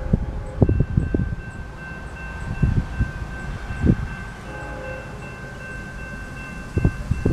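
Railroad crossing warning bell starting to ring about a second in and ringing on steadily as the crossing signals activate and the gates come down. Gusts of wind buffet the microphone over it, loudest at the start and near the end.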